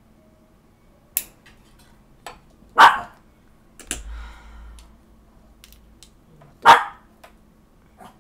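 A dog barking twice, two short loud barks about four seconds apart.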